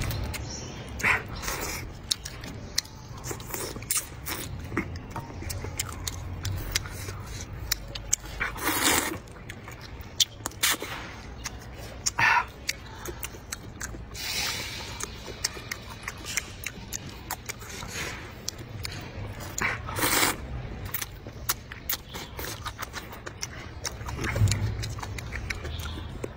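Close-up eating sounds of rice noodles: several short slurps spread through, with chewing and small clicks of chopsticks between them.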